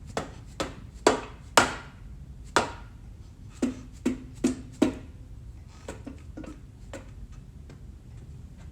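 Sharp metal knocks and taps from working on the housings of a Mazda 13B rotary engine during teardown: about nine irregular strikes in the first five seconds, the two loudest with a brief ringing tail, then lighter taps.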